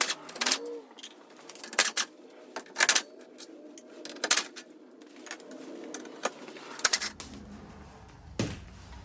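Irregular sharp clicks and knocks of tailgate parts being pried loose and handled on a Jeep Wrangler JK, with a brief squeak about half a second in.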